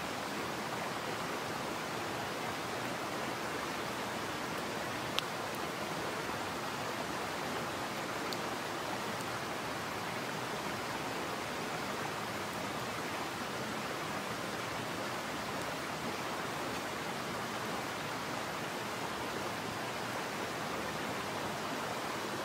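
Steady rushing of a mountain headwater stream, with a single sharp click about five seconds in.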